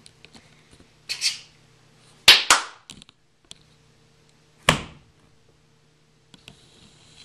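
A puppy scuffling and bumping about on a carpeted floor: a soft scuffle about a second in, then a sharp double knock about two seconds in and another sharp knock near the middle, with a faint steady hum underneath.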